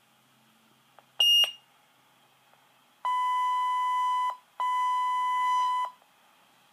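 Motorola Minitor V fire pager beeping: a short high chirp, then two long steady electronic beeps with a brief gap between them, the pager's alert for an incoming page.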